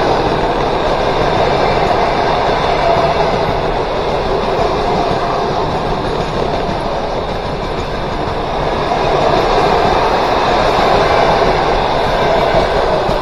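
Passenger train coaches rolling past at close range: a loud, steady rumble and hiss of wheels on rail.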